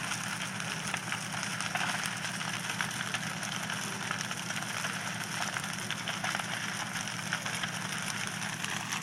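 Wooden house burning fully involved, its fire crackling steadily with many small snaps, over a steady low hum.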